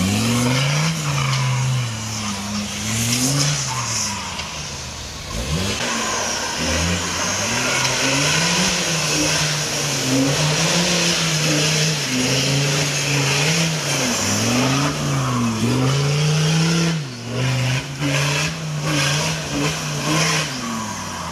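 Off-road 4x4 competition vehicle's engine revving up and down again and again as it works through the course. A loud hiss joins it from about six seconds in and drops away near the end, where the sound turns choppy.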